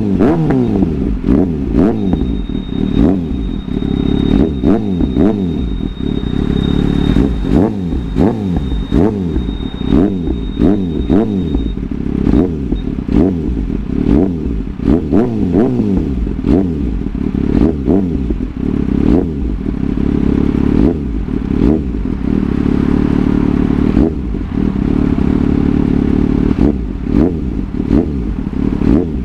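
Yamaha MT-09's three-cylinder engine, breathing through an aftermarket slip-on muffler, revved again and again in quick blips on the stand. The pitch climbs and falls with each blip, with sharp pops as the revs drop.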